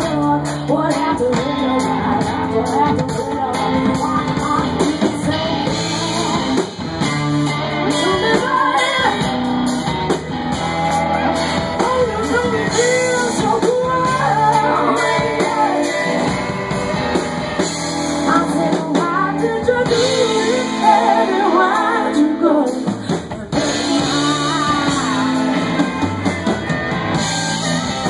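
Live rock and soul band performing a song, with singing over electric guitar, bass and a drum kit.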